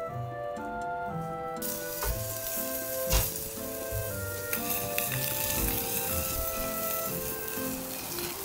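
Chicken-and-leek and vegetable skewers sizzling over a charcoal grill: a steady hiss that starts about a second and a half in, with a couple of light knocks soon after. Background music plays throughout.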